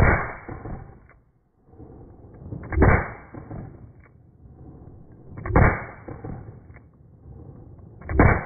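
Smith & Wesson pre-Model 10 .38 snub-nose revolver firing four single shots, spaced about 2.7 seconds apart. Each shot is followed by about a second of echo.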